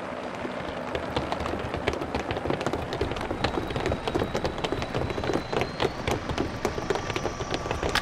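Sound effect of a squad of soldiers storming in: many rapid running footsteps and rattling gear.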